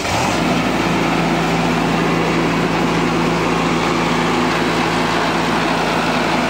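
Cable reel machine's engine running steadily at a constant speed, just after catching from a hard start, settling into an even run within the first moment.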